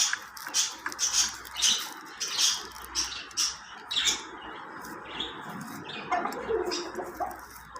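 Birds chirping in short, repeated high calls, thinning out about halfway through.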